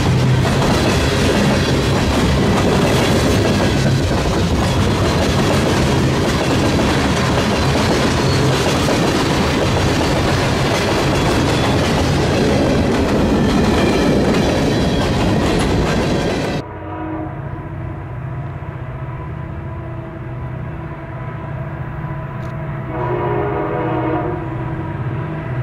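Freight cars rolling past close by, steel wheels clattering on the rails, until the sound cuts off suddenly about two-thirds of the way in. After that, a locomotive horn sounds a steady chord in the distance, growing louder shortly before the end.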